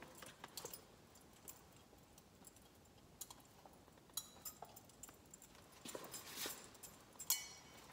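Faint metallic clinks of a thurible's chains and censer as it is swung to cense the Gospel book, scattered light clinks with a sharper one near the end.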